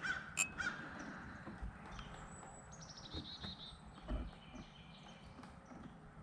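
Wild birds calling: a few short, harsh calls in the first second with a sharp click among them, then a quick run of high-pitched notes about three seconds in.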